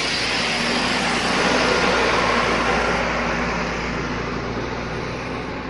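Large bus driving past, engine hum and road noise growing louder about two seconds in and then slowly fading as it moves away.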